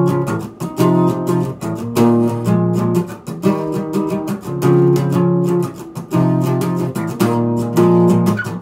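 Acoustic guitar strummed in a steady rhythm, a strong strum about once a second, moving through a chord pattern.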